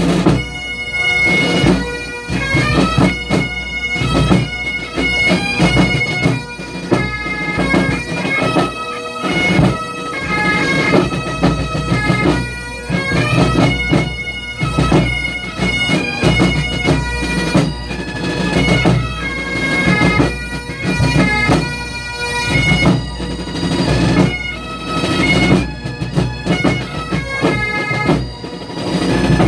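Pipe and drum band playing: bagpipes carry the tune over their steady drones, with drums beating underneath.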